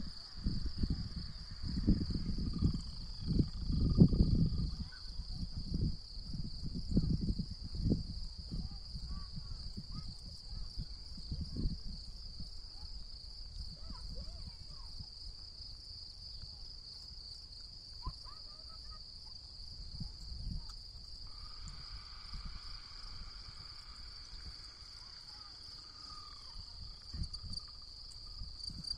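Insects, crickets or bush crickets, chirring continuously in a steady, high, finely pulsing trill. Low rumbling gusts come and go over it through the first dozen seconds and are the loudest sound, then die down.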